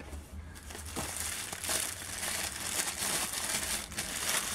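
Thin plastic wrapping crinkling as hands pull it off a small ball-shaped speaker, a dense run of fine crackles that picks up about half a second in.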